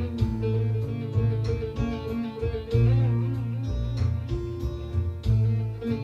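Bağlama playing a free improvisation in the Hicaz makam, with quick plucked melodic runs over held low bass notes.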